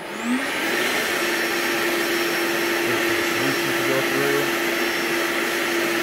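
Hoover Onepwr Spotless Go cordless carpet and upholstery cleaner switched on: its suction motor spins up with a quick rising whine, then runs steadily with an even rushing noise and a constant hum.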